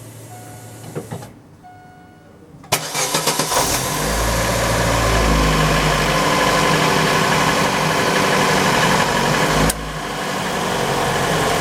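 Chevrolet Lanos 1.5-litre four-cylinder engine cranked by the starter about three seconds in, catching and settling into a steady idle. There is no squeal from the freshly tightened air-conditioning belt. Two faint short beeps come before the start.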